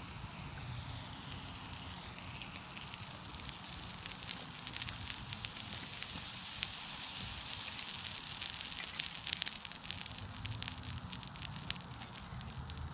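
Crackling and hissing from freshly poured molten aluminium cooling in steel ingot molds beside a skillet of glowing dross, with many small sharp ticks thickening from about four seconds in, over a low rumble.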